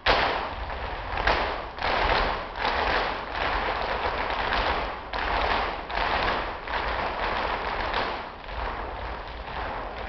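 Flamenco footwork: many heel-and-toe stamps of dancers' shoes hammering the wooden stage in a dense, rapid zapateado. It starts suddenly and surges in waves every half second or so.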